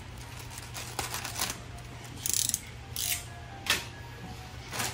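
Clear plastic bag crinkling and rustling in short bursts as it is handled, with a few light clicks and knocks.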